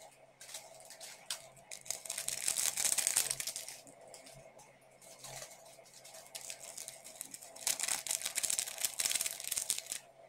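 Plastic Samyang instant-noodle seasoning sachets being crinkled and torn open, in two spells of crackling rustle.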